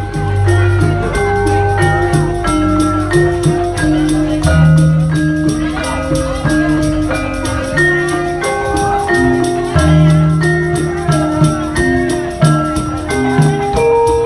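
Javanese gamelan music (gending): ringing metal-keyed notes step through a steady melody over low held notes, with a constant rhythmic pulse.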